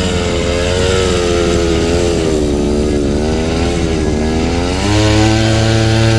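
Small trail motorcycle engine running, its pitch rising and falling with the throttle, then about five seconds in revving up to a steadier, higher and louder pitch.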